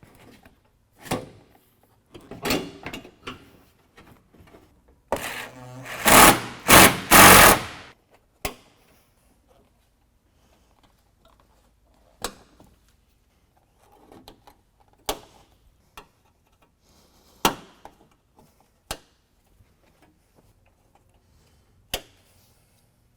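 Fastening work on a truck bumper: a loud, rapid mechanical rattle in three pulses about five to eight seconds in, like a power driver run on fasteners, amid scattered sharp clicks and knocks of parts and tools.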